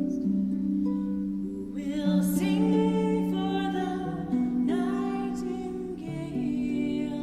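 A slow song: acoustic guitar playing held chords, with a voice singing a sustained melody over it.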